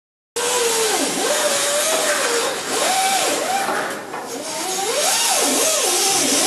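Gas torch flame hissing steadily as it heats a lead body-solder stick against a tinned steel panel. A single tone wavers up and down over the hiss.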